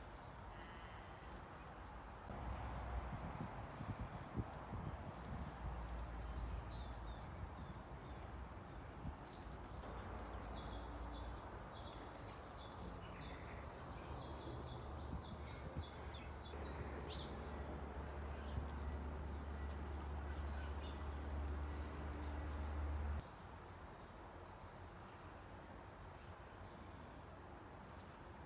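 Many small birds chirping and twittering, over a low steady rumble that stops suddenly near the end.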